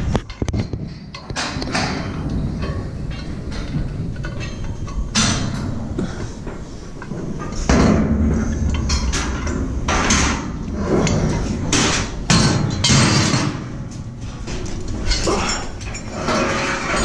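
Metal scaffolding parts, decks and fittings, clanking and knocking against each other as they are handled, with many irregular sharp impacts.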